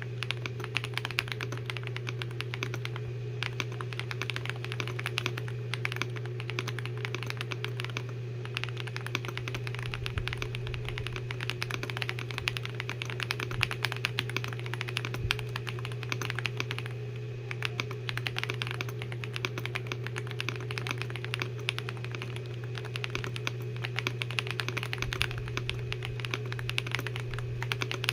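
Fast, continuous typing on an Ajazz AK820 mechanical keyboard fitted with Akko V3 Cream Black Pro switches, a dense stream of key clacks over a steady low hum.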